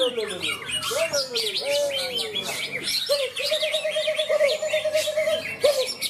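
Several caged green leafbirds (cucak ijo) singing at once, a dense run of quick high chirps and twitters. A lower, wavering note arches up and down, then is held for about two seconds in the middle.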